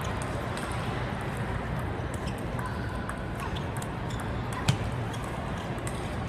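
Table tennis balls clicking off paddles and the tables in a rally, a scatter of short sharp clicks over a steady hall hum, with one loud click about three-quarters of the way through.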